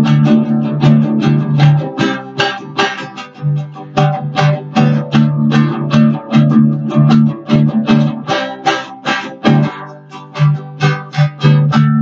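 Music: a guitar strummed in a steady rhythm, about three strokes a second, with no singing.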